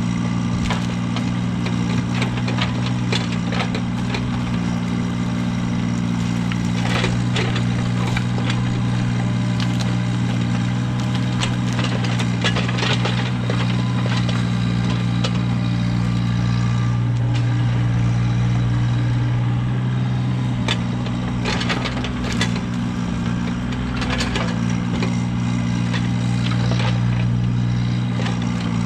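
An engine running steadily at a constant speed, with scattered sharp cracks and clicks over it.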